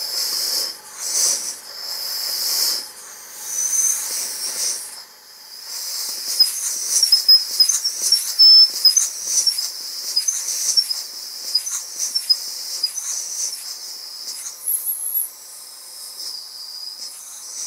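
Compressed air hissing into the cylinder of a Stuart half beam model steam engine from a hose nozzle held to its valve port, working the new piston to and fro as a first run test. A few separate puffs of air first, then a continuous hiss from about six seconds in, with many short squeaky chirps.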